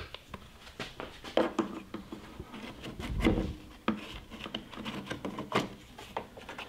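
Handling noise as a new air filter is fitted into a lawn mower engine's plastic air cleaner housing: scattered light clicks, taps and rubbing of plastic.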